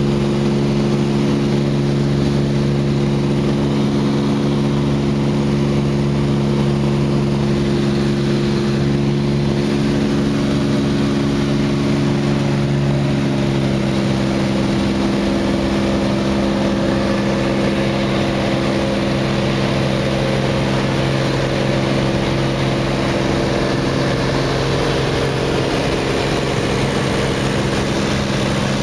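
Cabin noise of a light propeller aircraft in its climb just after takeoff: the engine and propeller make a loud, steady drone with several even low hums layered together.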